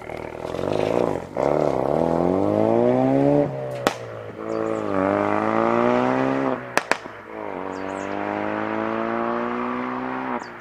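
Ford Focus RS Mk3's turbocharged 2.3-litre four-cylinder with a custom modified exhaust, accelerating hard away through the gears: the engine's pitch climbs, drops at each upshift and climbs again. Sharp exhaust cracks come at the shifts, once about four seconds in, twice just before seven seconds, and once more at the end.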